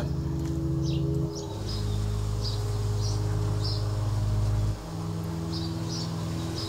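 Low sustained drone chord that shifts pitch about a second in and again near five seconds, with short high chirps repeating roughly twice a second above it.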